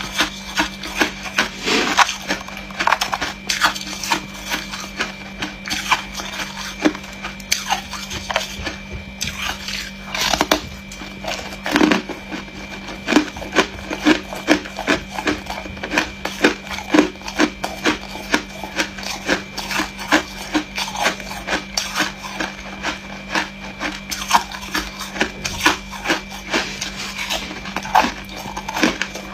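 Hard, frosty freezer ice being bitten and chewed close to the microphone: a run of crisp crunches, about three a second, over a steady faint hum.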